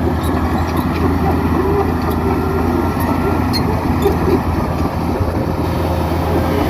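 New Holland crawler dozer working: its diesel engine runs steadily under load while the steel tracks squeal and clank.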